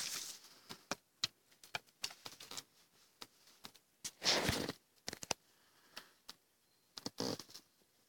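Close handling noise: irregular small clicks and three short rustles, the loudest about four seconds in.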